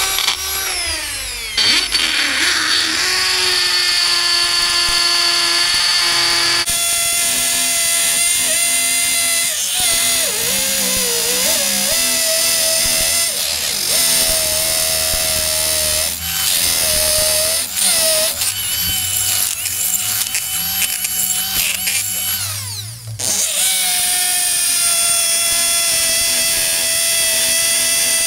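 Power drill boring into a concrete-block wall, its motor whining steadily. The motor winds down about 23 s in and then speeds up again.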